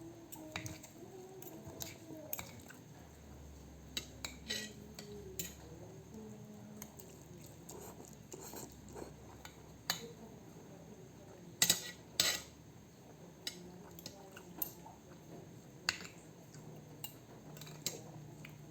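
Cutlery clinking and tapping against a plate at irregular intervals while eating, with two sharper clinks about twelve seconds in.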